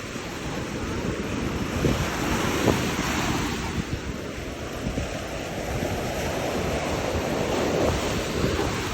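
Sea waves washing onto a shore, swelling and easing, with wind buffeting the microphone.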